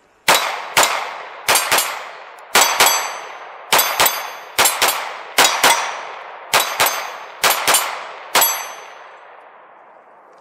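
Glock pistol in a CAA MCK carbine conversion kit firing rapid double taps: about eight pairs of shots with a last single shot. Steel gong targets ring after the hits.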